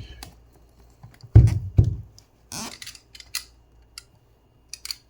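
Cardboard product boxes being handled and opened: two dull thumps about a second and a half in, a short scraping rustle, then scattered light clicks and taps.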